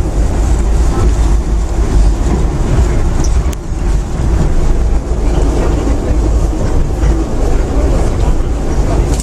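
Moscow monorail train running, heard from inside the passenger car: a steady, loud low rumble.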